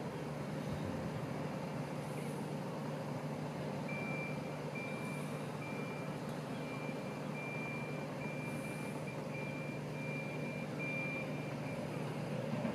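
Road-rail shunter's engine running with a steady low hum while a warning beeper sounds a regular series of short high beeps, a little under two a second, from about four seconds in until near the end, as it moves a railway coach.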